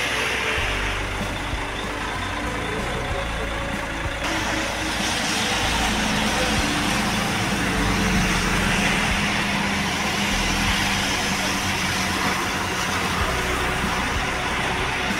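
Intercity coach's diesel engine running close by, with a steady hiss over it. The engine hum grows a little louder about halfway through.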